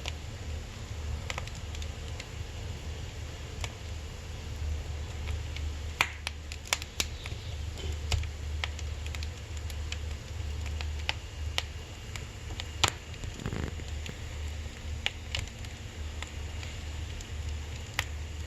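Firewood burning in a wood stove, crackling with irregular sharp pops, a few close together midway and the loudest a little past two-thirds through, over a steady low hum.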